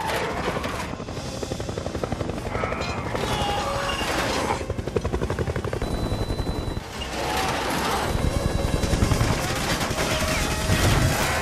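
Action-film sound mix: a helicopter with long bursts of rapid machine-gun fire, under orchestral score music.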